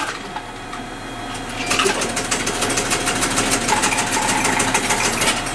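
Rapid, steady mechanical clattering, like a small machine running, starts about two seconds in inside a standing diesel railcar.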